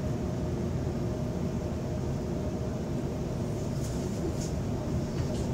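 Steady low rumble of an electric suburban passenger train heard from inside the carriage, with a few brief high-pitched hisses about four and five seconds in.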